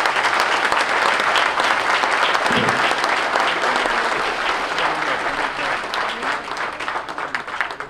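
Large audience applauding, a dense, even clatter of many hands clapping that thins out near the end.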